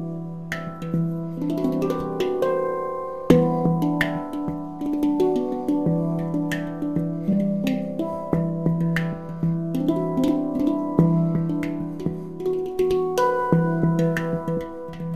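Celestial Sound handpan in the E Ostara scale played with the hands: ringing steel notes, a low note recurring every second or so under quick runs of higher tapped notes, with one hard strike about three seconds in.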